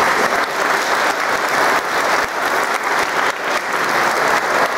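Audience applauding, many people clapping together densely and steadily.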